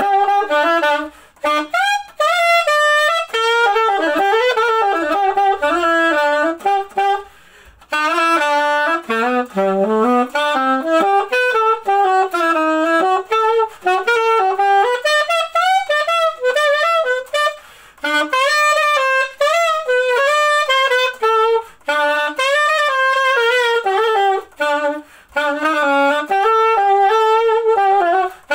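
Cheatau CAS 21L alto saxophone played solo, unaccompanied: a melody in phrases, with short pauses for breath between them.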